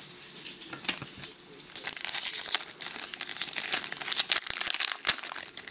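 Foil trading-card pack wrapper crinkling and being torn open, a dense crackle with sharp clicks that starts about two seconds in after a quieter stretch.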